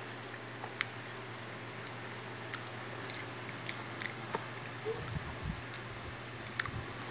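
A young child chewing corn kernels picked by hand from a plate, with scattered small clicks and taps and a few soft low bumps about five seconds in, over a steady low hum.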